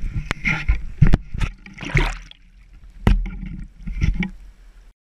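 Water splashing and sloshing with several sharp knocks and rubbing from a handheld action camera being moved around. The sound cuts off abruptly near the end.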